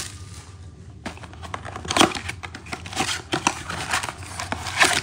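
Cardboard trading-card blaster box being opened by hand: crackling, tearing and rustling with sharp snaps, starting about a second in, with the loudest snaps about two seconds in and near the end.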